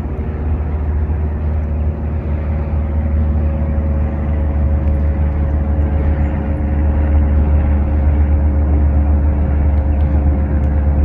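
Steady, loud drone of a moving vehicle: a deep rumble with a few faint steady hum tones above it.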